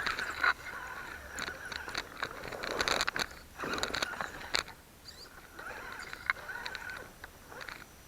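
Axial Wraith RC crawler's electric motor and gears whining in short spurts as it drives, with its tyres scraping and clicking over rock. It goes quiet near the end.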